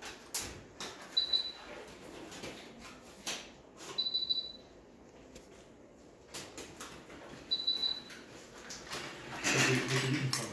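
A short, high-pitched beep from an anesthesia monitor every three seconds or so, over rustling and snapping as sterile surgical gloves are pulled on. About a second before the end comes a louder stretch with a brief low hum.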